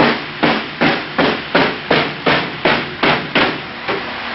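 Repeated hammer strikes: about ten evenly spaced sharp blows, a little under three a second.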